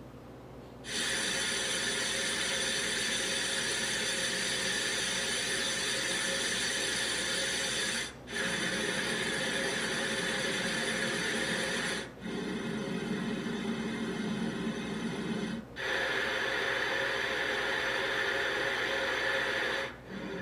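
Digital alarm clock's built-in white-noise sounds playing from its speaker: a steady hiss-like sound starts about a second in, then cuts out briefly and changes to a different steady sound four times, as the sounds are stepped through.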